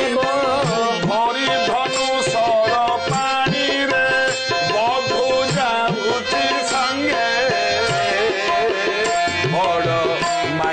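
Devotional music interlude: tabla playing a lively rhythm under a melody on harmonium and keyboard.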